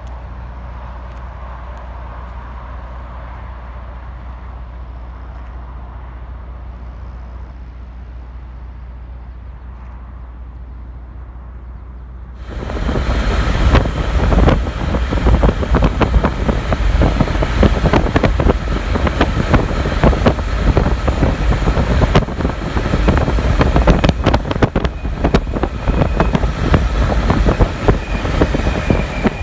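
A steady low engine hum for about twelve seconds, then an abrupt change to loud wind buffeting on the microphone with road rumble, recorded from a truck moving at speed.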